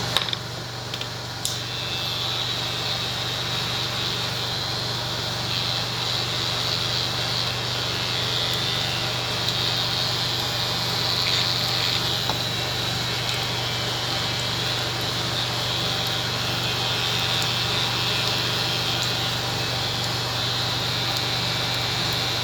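Electric hair clipper running steadily, with a constant low hum and a high whine above it, and a couple of small clicks in the first two seconds.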